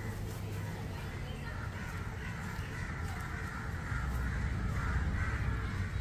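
Crows cawing repeatedly, mostly in the second half, over a steady low rumble.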